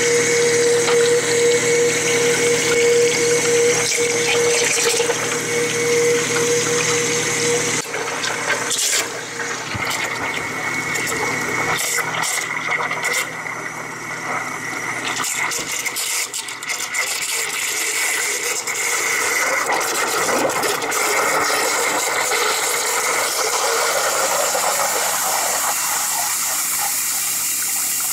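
Water churning and bubbling around a submerged Hubsan H501S X4 quadcopter with its brushless motors running, over a steady high whine. A lower hum stops about eight seconds in, and scattered knocks follow through the middle.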